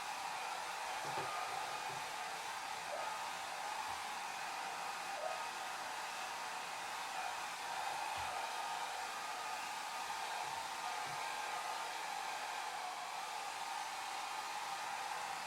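Hair dryer running steadily, a constant airy hiss with a faint hum in it, with no change in speed or pitch.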